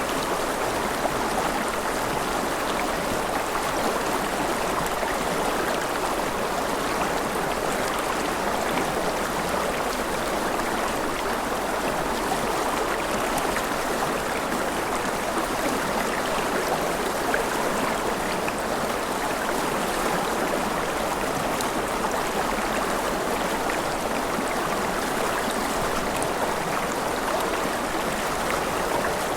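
Mountain river flowing over rapids: a steady, even rush of water.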